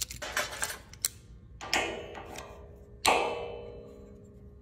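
Self-adjusting locking clamp clicking as its lever and jaws are worked. Then two sudden metallic clanks with a ringing decay, about a second and a half apart, the second louder, as the steel jaws close on a steel beam.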